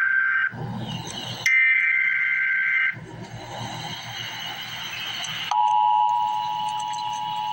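Emergency Alert System SAME header tones: a burst of rapid two-pitch digital warbling ends about half a second in, and a second burst runs from about 1.5 to 3 s, with hiss between. About 5.5 s in the EAS attention signal starts, a steady two-tone note.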